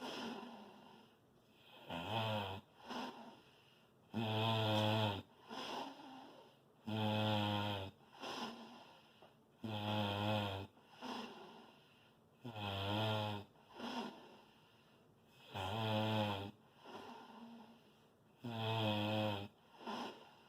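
Loud snoring: one long pitched snore, about a second each, roughly every three seconds, with one or two shorter, softer sounds between snores.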